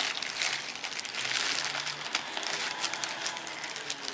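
Clear plastic packaging bag crinkling and rustling continuously as a bag is pulled out of it by hand.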